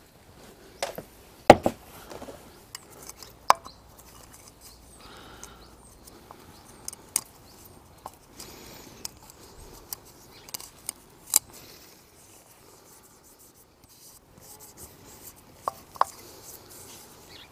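Gloved hands working a plastic cartridge oil filter housing cap while its main gasket is swapped: rubbing and handling noise with scattered sharp plastic clicks and knocks, the loudest about a second and a half in.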